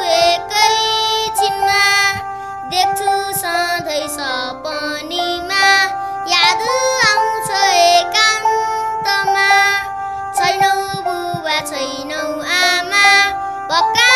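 A boy singing a Nepali song, his voice bending between notes, over held instrumental chords.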